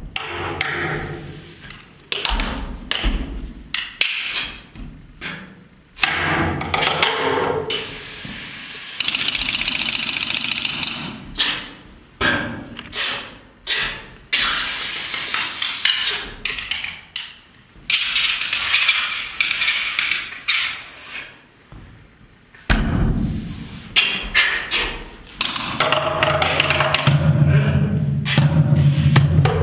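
Free, unmetered percussion: single mallet strikes and knocks on wood and small hand percussion, with stretches of rattling in between. In the last several seconds a low held instrumental note comes in under the percussion.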